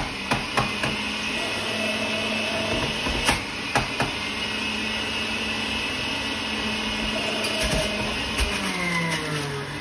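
Centrifugal juicer's motor running with a steady whirring hum as vegetables are pressed down the feed chute, with a few sharp knocks in the first four seconds as the produce hits the spinning cutter.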